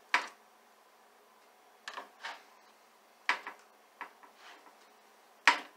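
Spatula scraping and clacking against a metal baking sheet as burgers are slid up and flipped: about six short, sharp scrapes and knocks spaced a second or so apart, the loudest near the end.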